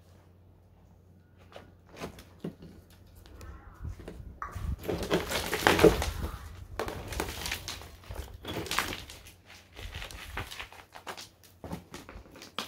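Footsteps crunching over rubble and scrap, with scattered knocks and scuffs; the loudest crunching comes about halfway through.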